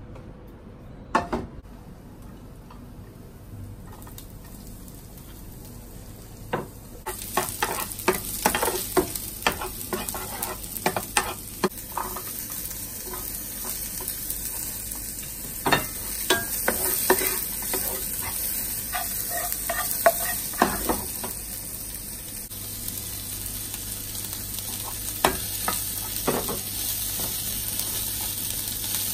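Diced vegetables and rice frying in oil in a frying pan: a steady sizzle starts about seven seconds in, with a metal spoon clicking, knocking and scraping against the pan as the food is stirred. A single knock comes about a second in, before the frying starts.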